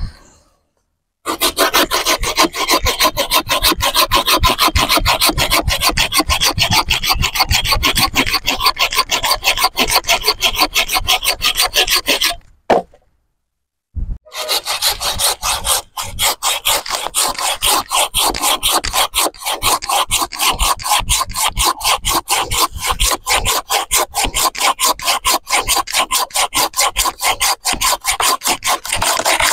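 Wolf Garten Saw Pro 370 Power Cut, a curved pruning hand saw, sawing through a tree stem with fast, steady back-and-forth strokes; its two-way teeth cut on both the push and the pull. The sawing stops for about a second and a half a little before halfway, then starts again.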